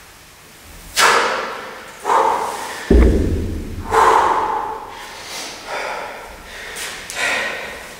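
Heavy, forceful exhalations from exertion after a set of pistol squats, coming about once a second at first and then weaker. About three seconds in, a thud as the kettlebell is set down on the floor.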